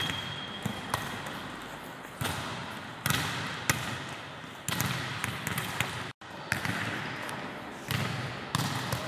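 Volleyballs being struck on forearm passes and bouncing on a wooden gym floor: an irregular scatter of sharp smacks from several balls at once, echoing around a large hall.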